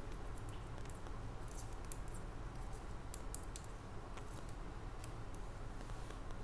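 Metal knitting needles clicking faintly and irregularly as knit stitches are worked across a row, over a steady low hum.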